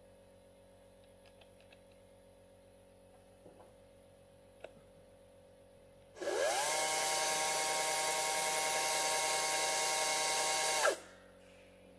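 STIGA SPR 500 AE 48 V battery chainsaw run with no load. After a few faint clicks, the electric motor and chain spin up with a rising whine about six seconds in, run steadily for about five seconds, then wind down and stop.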